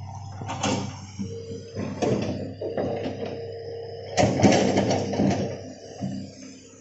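Hitachi hydraulic excavator at work: its diesel engine running steadily under a held hydraulic whine, with scraping and clanking bursts as the bucket works the soil, the loudest about four seconds in.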